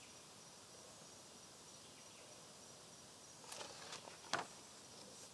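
A paperback picture book being handled and its page turned: brief rustling and one sharp tap a little after three and a half seconds in, over faint steady hiss with a thin high tone.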